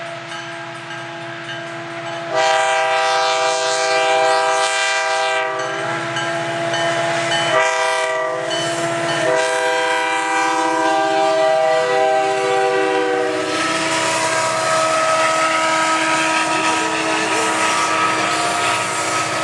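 Canadian Pacific diesel locomotive's multi-note air horn sounding for the crossing: a fainter blast, then a long loud blast, a short one and another long one, the warning pattern for a grade crossing. Then the locomotives pass close by with engine rumble and the clatter of wheels on the rails.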